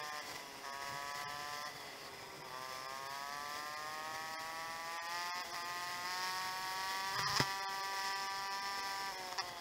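Motorcycle engine running while riding along a road. Its note dips, then climbs slowly with the throttle, and drops again near the end. There is a sharp knock about seven seconds in.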